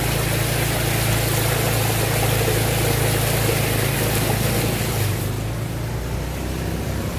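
Motor vehicle engine running steadily, with a loud rushing hiss over it that drops away about five seconds in.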